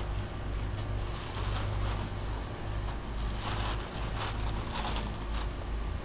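A blue plastic tarp rustling and crinkling in several short bursts as it is pulled and spread, over a steady low rumble.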